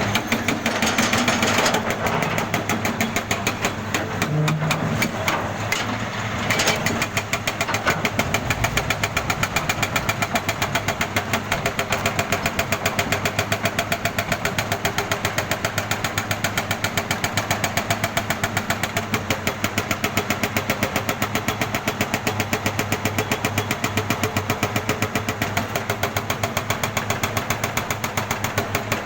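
Jackhammer hammering steadily, a rapid, even stream of sharp blows, settling into an especially regular rhythm after about six seconds.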